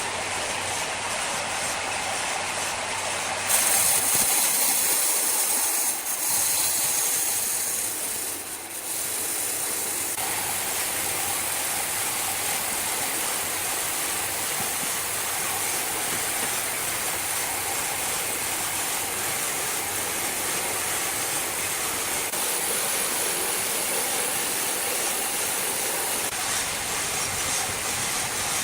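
Sawmill machinery running with a steady mechanical noise, growing louder and harsher for about five seconds a few seconds in.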